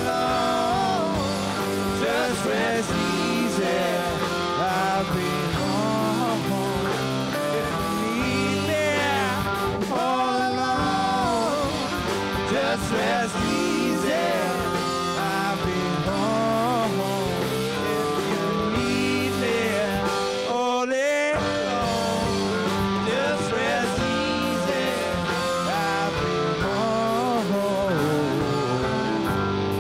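Live rock band playing: electric guitars, drums and electric bass with an electric upright bass, and a voice singing over them.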